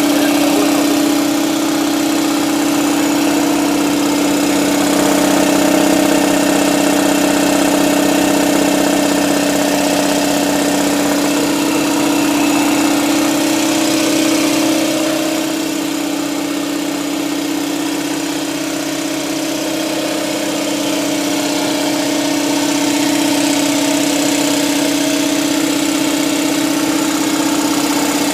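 Husky 60-gallon air compressor running steadily, its 220-volt single-phase electric motor and pump giving a constant hum with one strong steady tone. It eases a little for a few seconds past the middle.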